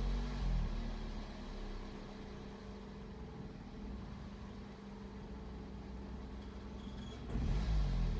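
Car engine at warm idle, running rough with the idle speed hunting: the note wavers and is louder for the first second, drops lower and quieter for several seconds, then swells and wavers again about seven seconds in. This fluctuating rough idle comes with vibration.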